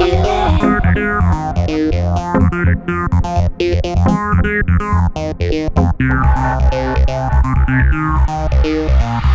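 Electronic dance music: rapid repeating synthesizer notes over a steady pulsing bass line.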